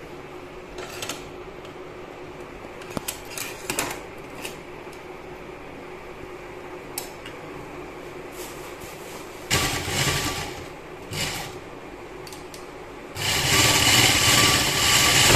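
Sewing machine stitching an elastic strap onto a cloth bag, first in two short bursts about ten seconds in, then in a longer, louder run near the end. Before that, only a few light clicks and rustles of the fabric being handled.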